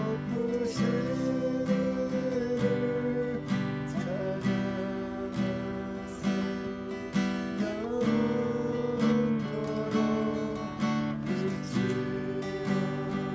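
Acoustic guitar strummed in steady chords, playing a worship song.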